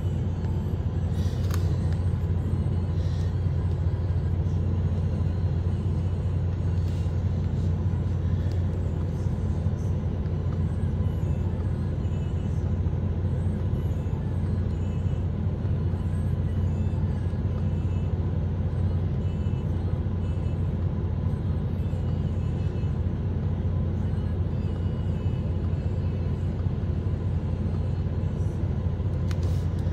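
MAN TGX 18.500's 12.4-litre straight-six diesel idling steadily, heard from inside the cab. A few light clicks come near the start and again near the end.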